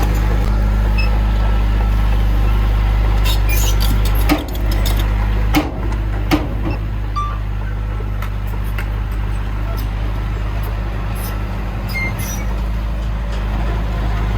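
Heavy machinery diesel engine running steadily with a low drone, with a few sharp clanks about four to six seconds in.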